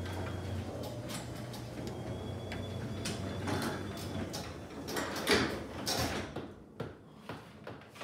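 Sectional garage door mechanism running: a steady hum with a faint high whine and a rattle of the door on its steel tracks. There are loud clunks near the five-to-six-second mark, then it stops sharply, leaving a few separate knocks.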